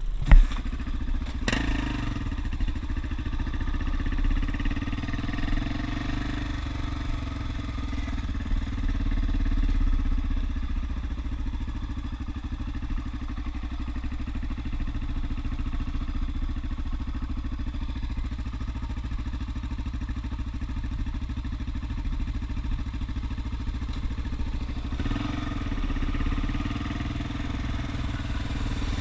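Single-cylinder four-stroke dirt-bike engines running steadily under way, a low pulsing drone that holds an even pitch.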